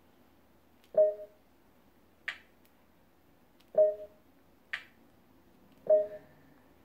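Samsung Smart TV menu beeping as DNS digits are entered with the remote: three short low beeps a couple of seconds apart, with two fainter sharp clicks between them.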